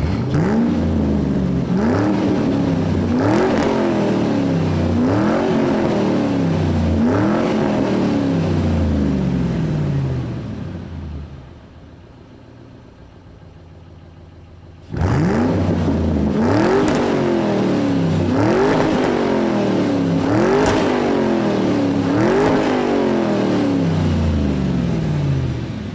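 A motor repeatedly spinning up sharply and winding down slowly, roughly every second and a half to two seconds. There are two runs of four or five cycles, with a quieter pause of a few seconds in the middle.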